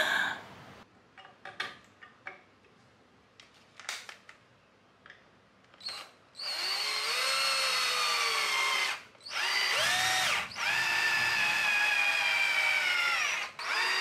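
Cordless drill driving a long screw through a pine board into the wall. It runs in several bursts over the second half, the motor whine sagging in pitch as the screw bites. It is preceded by a few light clicks and knocks.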